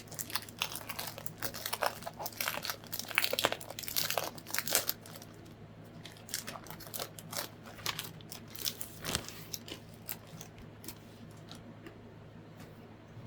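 Paper and plastic packaging crinkling and rustling as a paper pad is unwrapped and handled. A dense run of crackles for the first five seconds or so thins out to occasional rustles.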